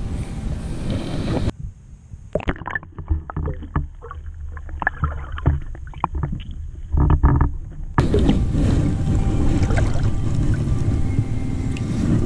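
Wind and water noise aboard a small fishing boat. For several seconds in the middle the sound turns muffled, with irregular knocks and thuds.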